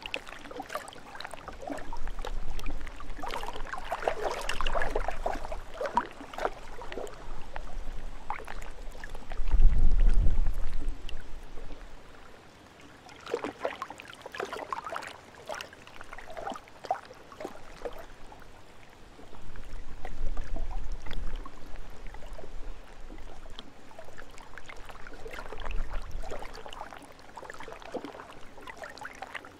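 Small lake waves lapping and splashing in irregular groups, with a rumble of wind on the microphone that swells and fades, strongest about ten seconds in.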